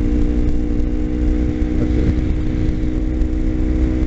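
Kawasaki Ninja 250's parallel-twin engine running at a steady speed while the bike cruises through a bend, with wind noise on the microphone.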